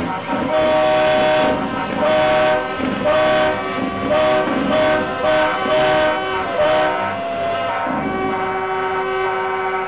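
Truck air horns blowing a run of short blasts, several notes sounding together as a chord, then one long, lower held blast from about eight seconds in.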